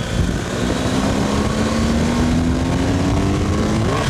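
BMW R 1250 GS Adventure's boxer-twin engine pulling away and accelerating, its pitch rising steadily for about three seconds, then a gear change near the end.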